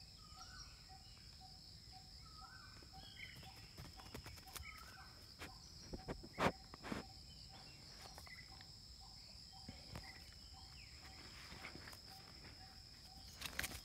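Faint outdoor morning ambience: a steady high insect drone, a soft note repeated about twice a second and scattered short bird chirps. About halfway through, a few sharp knocks and rustles as a dog's muzzle bumps the camera.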